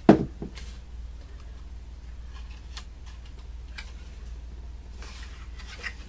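A sharp knock on the work table, then soft scattered rustles and light taps of paper pieces being pressed into a small cardboard box by hand.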